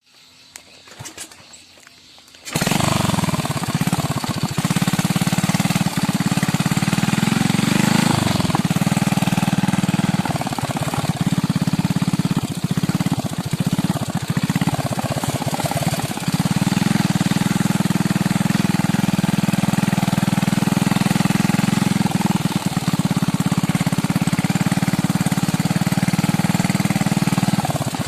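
Motor grandong (modified hauling motorcycle) engine, loud and rough, coming in abruptly about two and a half seconds in and then running steadily while riding, its note dipping several times in the middle.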